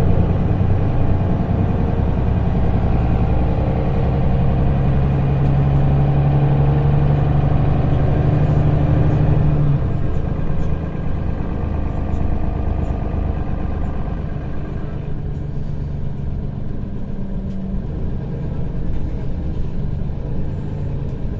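City bus running, heard from inside the passenger cabin: a steady low hum that, about ten seconds in, drops lower and quieter as the bus slows to a crawl in traffic.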